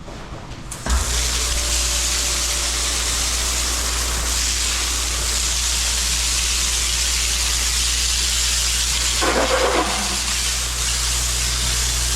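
High-pressure water spray washing down a milking parlour, starting suddenly about a second in and then running as a steady loud hiss over a steady low hum. The sound shifts briefly near the end.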